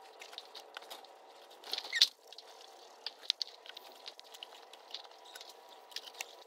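Light scratching and tapping of rabbits and hay in a hutch, many small ticks with a sharper click about two seconds in, over a faint steady hum.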